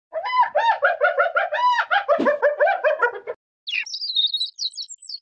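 Spotted hyena giggling: a quick run of short, rising-and-falling yelping notes lasting about three seconds. After a brief gap, a nestling bird peeps in high, thin chirps.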